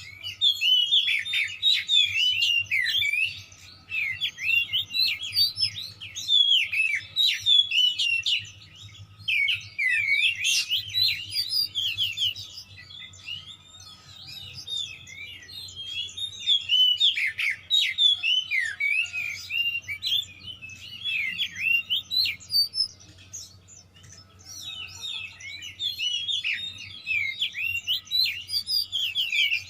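Oriental magpie-robin singing an agitated, combative song: rapid, varied high whistles and chirps packed with mimicked calls of other birds, in bursts broken by brief pauses. A faint low hum runs underneath.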